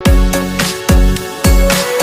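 Background music with a steady, punchy kick-drum beat and sustained pitched notes.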